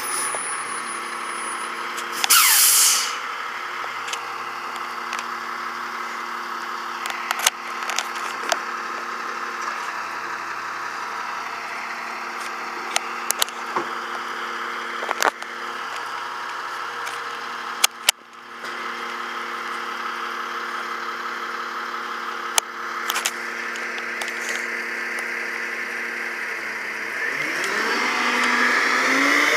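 Freightliner garbage truck's diesel engine running steadily, with a short loud hiss of air about two seconds in and scattered sharp knocks and clanks. Near the end the engine revs up as the truck pulls away.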